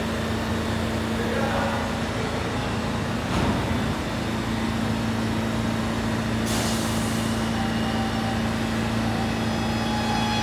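R211T subway train standing at the platform with a steady electrical hum. About six and a half seconds in comes a sharp burst of air hiss lasting about a second, typical of the air brakes releasing before it departs. Near the end, faint steady whining tones from the train's equipment set in.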